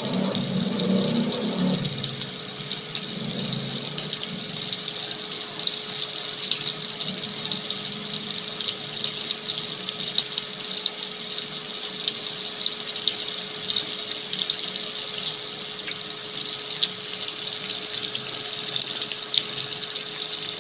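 Breaded chicken leg pieces deep-frying in hot oil: a steady, dense sizzle full of fine crackles.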